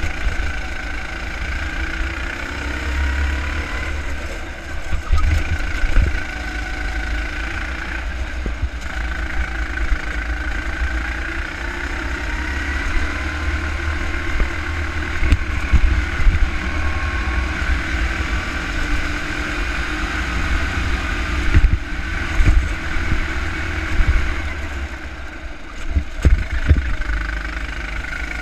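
Go-kart engine heard from the driver's seat through a lap, its pitch rising and falling as the throttle opens and closes, with low thumps underneath.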